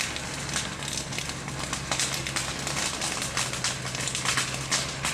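Brush fire burning, crackling with many irregular sharp pops, over a faint steady low hum.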